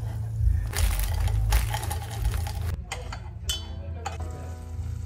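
Spoon stirring melted butter in a saucepan, scraping and clinking against the pan, over a steady low hum.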